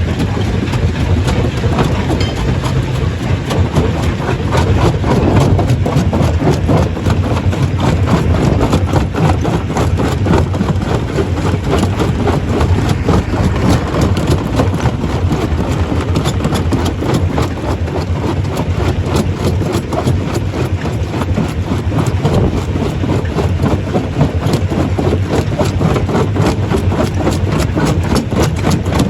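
Stone crusher running under load: a steady heavy machine drone with constant rattling and knocking of rock being crushed.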